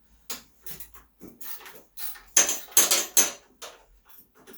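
Metal tools and parts clinking and knocking in a string of sharp clatters, the loudest three close together about two and a half to three and a half seconds in.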